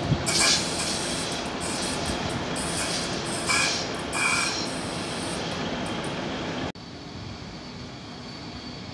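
Intermodal freight train of pocket wagons carrying lorry trailers rolling past, with a dense rumble and clatter of wheels on rail and two short high wheel squeals around the middle. The train noise cuts off abruptly about two-thirds through, leaving a quieter steady background noise.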